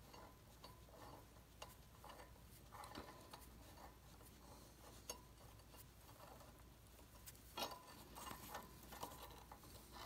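Near silence, with a few faint clicks and soft handling noises from a small metal valve stem and spring being turned in the fingers; a slightly louder rustle comes about three-quarters of the way through.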